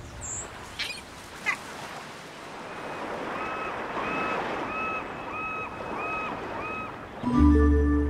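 Title-sequence sound effects: a rushing, water-like hiss with two short squeaks about a second in, then a tone pulsing about twice a second, seven times. Music with a deep bass comes in near the end.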